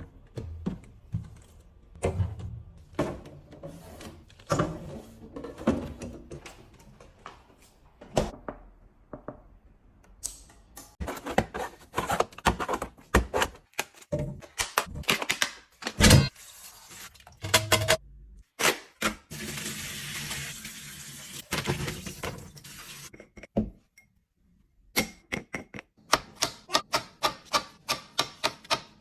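Fridge restocking sounds: plastic containers, bottles and lids being set down, snapped and handled, making a steady stream of sharp clicks and thunks. About two-thirds of the way through there is a few seconds of steady hiss, and near the end a quick, even run of clicks.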